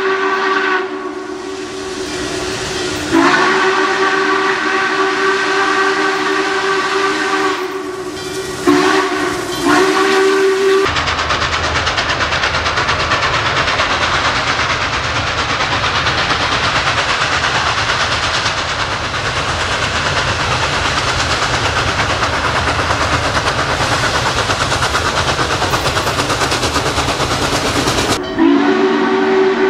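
Norfolk & Western J-class 4-8-4 No. 611 steam locomotive blowing its chime whistle, several tones at once: a short blast, a long one of about five seconds, then another of about two seconds. After that comes a long stretch of steady hissing and low rumbling as the working locomotive passes, and the whistle sounds again near the end.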